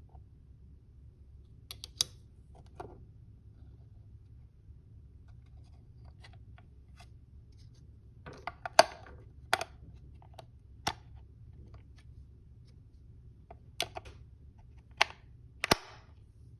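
Scattered sharp clicks and knocks of handling, a dozen or so, loudest in a cluster about halfway through, over a low steady hum; none of the toy's electronic sound effects is heard.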